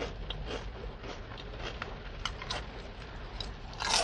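Soft mouth sounds of chewing fried food, with scattered small clicks and crackles of food and wrappers being handled, over a low steady hum. A louder crackle comes just before the end.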